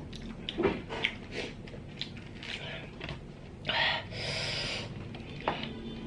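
Close-up eating sounds of a person eating small sea snails stir-fried in garlic butter, pulling them from their shells by hand: small scattered clicks and smacks, then about four seconds in a loud suck lasting nearly a second.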